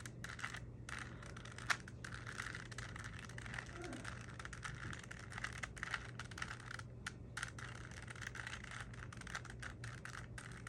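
Plastic Rubik's cube layers being turned by hand, a continuous run of small clicks and rattles as the faces snap round.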